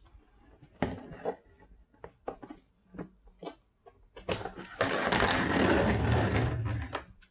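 A cardboard LEGO set box being opened: light taps and rustles, then from about four seconds in a loud stretch of rustling and scraping lasting a couple of seconds.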